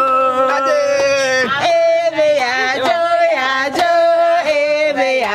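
Voices singing a chant-like song in long held notes, each sustained for a second or more, stepping up and down in pitch.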